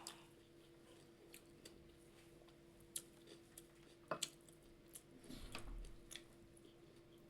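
Faint sounds of a person chewing food: scattered soft mouth clicks and smacks, a little sharper about three and four seconds in, over a faint steady hum.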